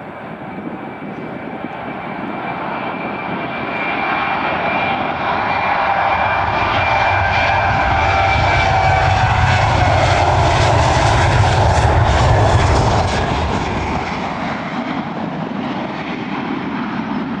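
Ryanair Boeing 737's twin turbofan engines at takeoff thrust as the jet rolls down the runway and lifts off. The sound grows louder to a peak, a deep rumble with a steady whine over it, then eases a little as the jet climbs away.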